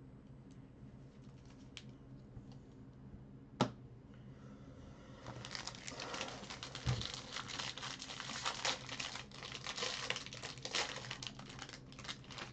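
Foil trading-card pack wrapper crinkling and tearing as it is handled and opened, a dense crackle from about five seconds in until just before the end. A single sharp click comes before it, about three and a half seconds in, and a low thump about seven seconds in.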